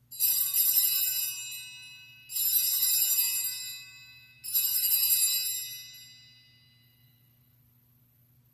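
Altar bells (sanctus bells) rung three times, about two seconds apart, each ring fading away; they mark the elevation of the host at the consecration.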